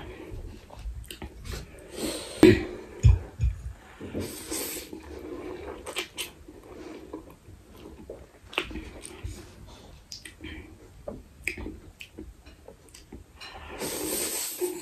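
A person slurping and chewing instant ramen noodles, with wet mouth sounds and small clicks. A hissy slurp comes about four seconds in, and a longer, louder slurp comes near the end.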